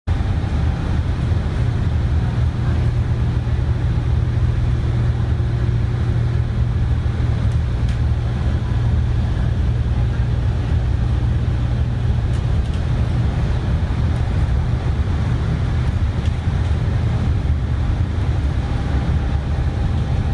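Airport bus cabin noise while cruising along a highway: a steady low drone of engine and road rumble, with no change in pitch or level.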